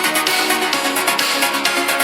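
Electronic background music with a fast steady beat and sustained synth notes.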